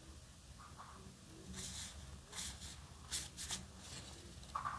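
Yu-Gi-Oh! trading cards sliding against one another as they are flipped through by hand: a few faint, short swishes.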